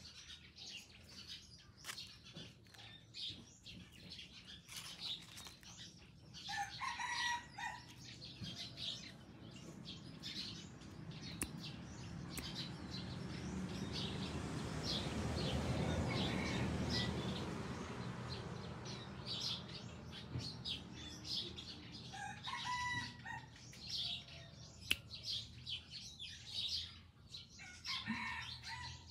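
A junglefowl-hybrid rooster calls twice, about seven seconds in and again a little past twenty seconds, with small birds chirping throughout. In the middle a rush of noise swells for several seconds and fades away.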